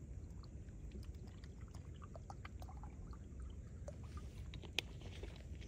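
Water poured from a plastic bottle into a small pot, a faint run of trickling and splashing ticks, with one sharp click about five seconds in, over a steady low rumble.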